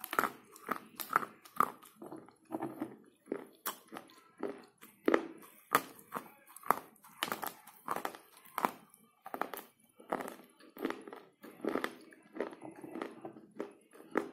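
Slate pencils being bitten and chewed: a run of dry crunches, about two a second.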